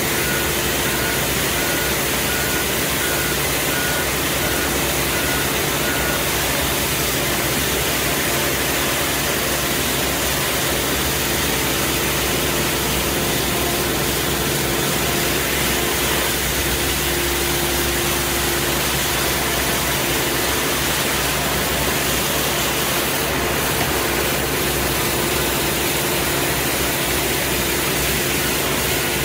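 Compact street sweeper running with a steady engine drone and hiss while its rotating side brush scrubs the paving. A high, evenly pulsing beep sounds through the first several seconds and returns near the end.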